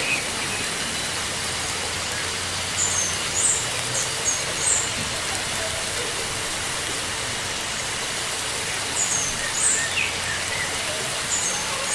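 Steady rush of running water from a greenhouse water feature. Over it, a small bird gives two short runs of quick, high chirps, about three seconds in and again about nine seconds in.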